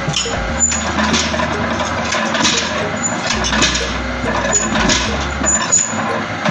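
Soap-making machinery running with a continuous clattering, rattling noise full of small clicks, and a low hum that drops in and out.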